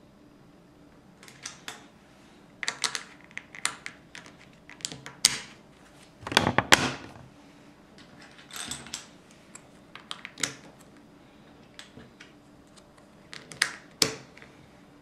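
Plastic Lego pieces clicking and tapping as tiles and plates are handled and pressed onto a baseplate, in irregular clicks with a louder clatter of pieces about six seconds in.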